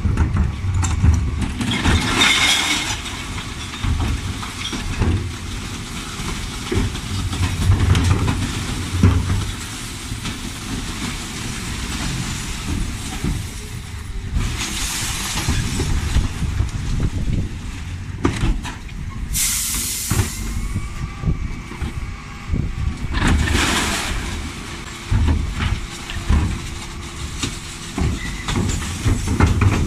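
Dennis Elite 6 bin lorry's diesel engine running with a low rumble while its Terberg OmniDEKA bin lift is worked, broken four times by hisses of compressed air. The hiss about 19 seconds in is the sharpest.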